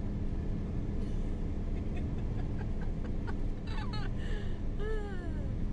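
Steady road and engine rumble heard inside a vehicle's cab at highway speed. About four and five seconds in there are a few short pitched sounds that fall in pitch, like a brief voice.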